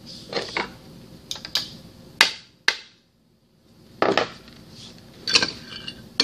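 Irregular metal clinks and knocks of mechanical-seal parts being handled and fitted on a centrifugal pump's shaft sleeve, with a short gap of near silence about three seconds in.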